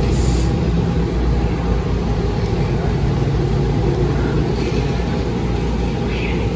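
Steady low drone of a New Flyer Xcelsior XDE40 hybrid diesel-electric bus running, heard from inside the passenger cabin.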